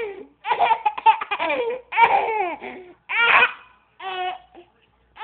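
Baby laughing in about four bursts of high-pitched giggles with short pauses between.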